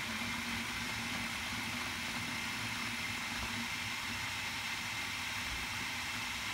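National electric food chopper running steadily, its blades chopping mango, onion, tomato and herbs in water into a coarse chutney. A low motor hum under the whir drops out a little past halfway.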